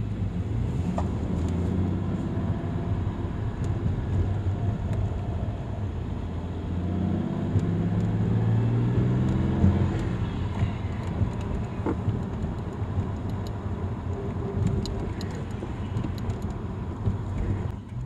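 SN95 Ford Mustang's engine pulling through the gears, heard from inside the cabin: its pitch climbs steadily for a few seconds and drops at an upshift about ten seconds in, over a steady road rumble.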